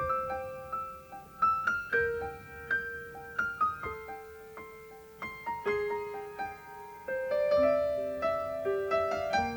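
Piano playing a slow, gentle melody of single struck notes over held lower notes, growing louder about seven seconds in.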